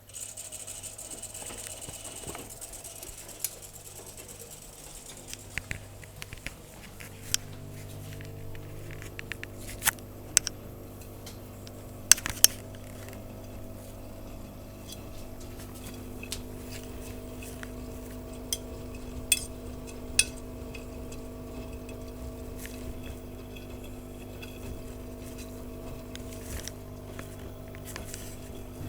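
AEG Öko-Lavamat washing machine running its wash cycle: a steady motor hum that builds after the first several seconds, with sharp clinks and knocks scattered throughout.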